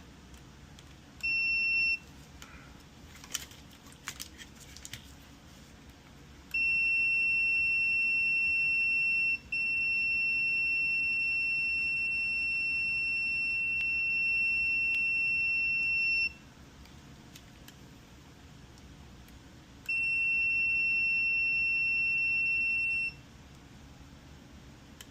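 Multimeter continuity beeper sounding as test probes touch points on a circuit board: a short beep, then a long steady high tone with a brief break, and a second long tone near the end, signalling continuity. Faint clicks of the probe tips come between the beeps.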